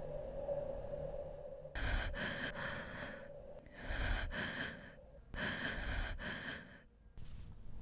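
A person breathing heavily: three long, noisy breaths of about a second each, with short pauses between them.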